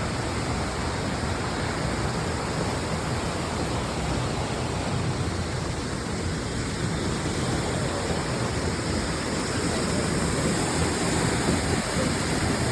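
Waterfall: a steady rush of falling water, growing slightly louder in the last few seconds.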